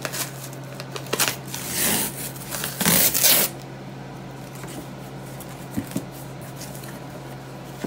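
Cardboard shipping box being handled and opened: papery rustling and scraping for the first three and a half seconds, then quieter handling with a short click near six seconds.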